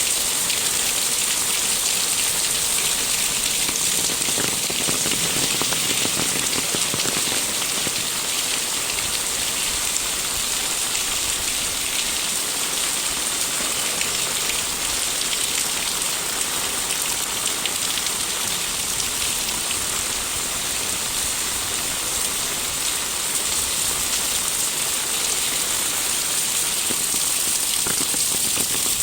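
Steady rain falling, a constant hiss of rainfall with many small drop impacts pattering throughout.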